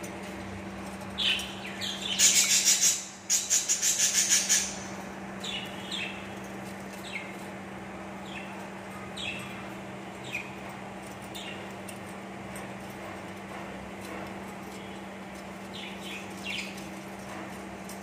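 Budgerigars in a nest box: about two seconds in, two bursts of loud, rapid, raspy calls, then short chirps sliding down in pitch, spaced a second or so apart. A steady low hum runs underneath.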